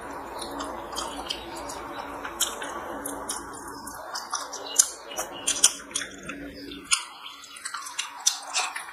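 Close-miked chewing of rice and chicken curry eaten by hand, with many irregular wet clicks and smacks and the soft squish of rice being mixed by fingers on a steel plate.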